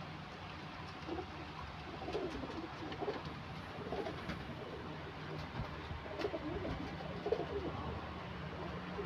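Domestic pigeons cooing: several low, wavering coo phrases, the clearest about two, four and six to seven seconds in, over a steady low hum.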